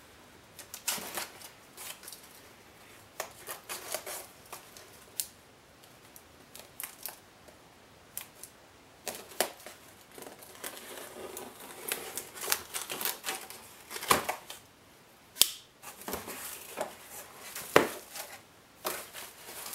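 A pocket knife slitting the packing tape on a cardboard box: irregular scraping, tearing and sharp clicks of blade and tape on cardboard. Near the end the cardboard flaps are pulled open.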